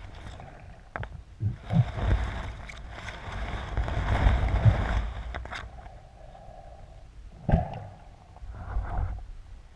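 Underwater sound of the camera moving through seaweed: water swishing and weed brushing and scraping against the housing, with dull knocks, loudest from about a second and a half to five seconds in. A single sharp knock comes about seven and a half seconds in.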